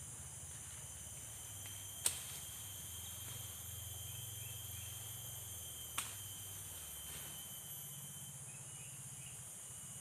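Steady high-pitched insect chorus of the tropical forest, with two sharp clicks or knocks about two seconds and six seconds in.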